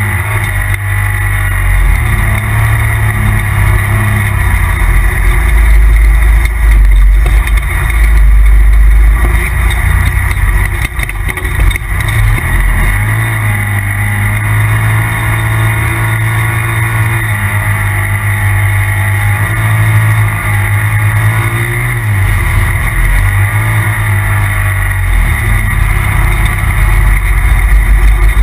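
Turbocharged engine of a 2017 Polaris RZR Turbo side-by-side running hard under way, its note rising and falling with the throttle.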